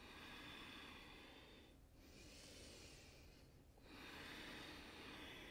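Faint breathing: three slow, soft breaths, each a gentle rush of air lasting about a second and a half, with short pauses between them.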